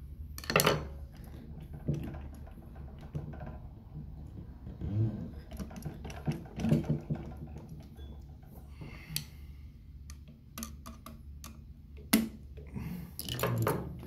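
Irregular clicks and light metal knocks as a screwdriver adjusts the binder-attachment bracket on an industrial sewing machine. A steady low hum runs underneath.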